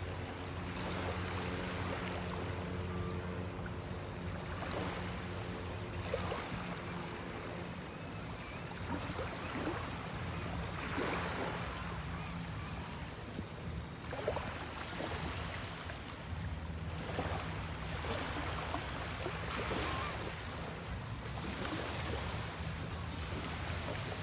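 Small waves lapping and washing in along shallow water at the shoreline, in repeated surges a few seconds apart, over a low steady hum.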